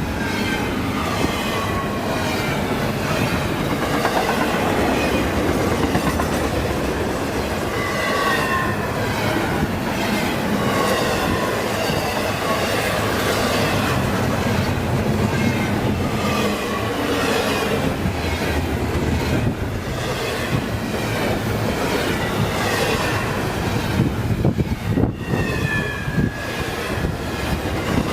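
Freight train cars rolling past on the rails, the wheels clicking over the joints, with short squeals that drop in pitch every second or so and sharper knocks near the end.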